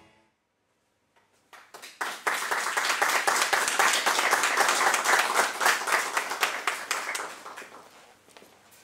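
A small audience applauding. The clapping starts about a second and a half in, holds steady, and fades out near the end.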